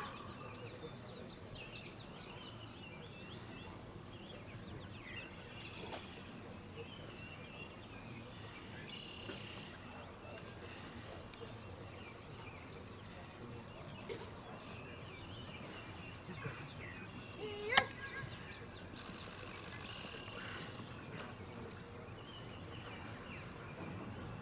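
Quiet open-air ambience with small birds chirping faintly throughout, and one short, sharp, loud sound about three-quarters of the way through.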